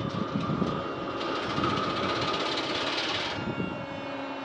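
MTU 12 V 956 TB 10 V12 diesel engine of a DB class 218 locomotive starting up. A hissing rush builds about a second in and cuts off sharply about two seconds later, over a steady whine and low rumble.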